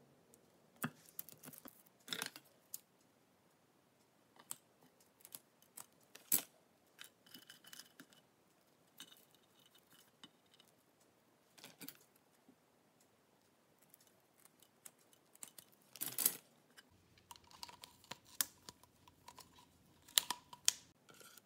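Faint, scattered clicks and taps of small wooden toothpicks being picked up and set down on a wooden cutting board, with a few short rustles; the sharpest taps come about six seconds in, around sixteen seconds, and near the end.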